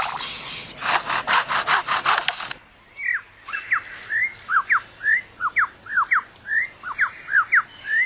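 Superb lyrebird's mimicry of a chainsaw, a run of quick rasping strokes about five a second. After about two and a half seconds it switches to a string of clear whistled notes that sweep up and down, roughly two a second.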